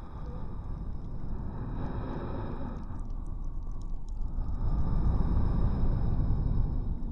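Layered heavy breathing: slow, deep breaths that swell and fade. A shorter swell comes about two seconds in, and a longer, louder one fills the second half.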